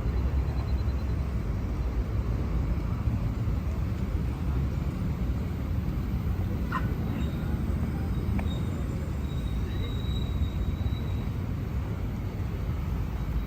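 City street traffic: a steady low rumble of passing vehicles, with a few brief high-pitched sounds about halfway through and a faint high whine after them.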